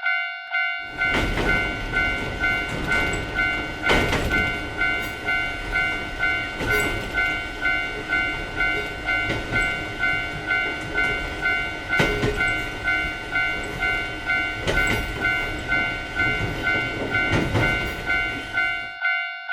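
Japanese level-crossing warning bell ringing its rapid, even "kan-kan" dings throughout. About a second in, a passing train's rumble and wheel clacks join it and go on until it cuts off just before the end.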